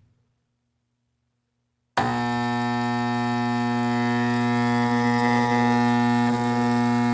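Furnace draft inducer motor switched on and buzzing steadily, trying to spin but unable to: the motor is stalled, which the owner takes for the fault keeping the furnace from starting. The buzz starts suddenly about two seconds in, after near silence.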